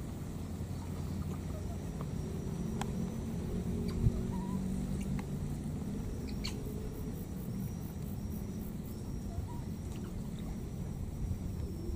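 Outdoor ambience: a steady low rumble with a thin, high, steady tone that breaks off now and then, a few faint clicks, and one sharp thump about four seconds in.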